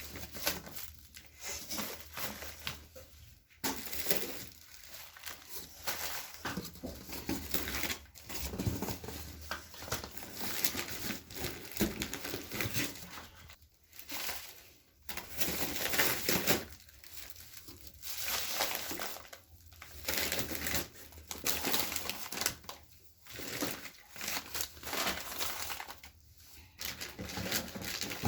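Parcel wrapping being torn open and crinkled by hand, in irregular bursts of rustling and tearing with short pauses between them.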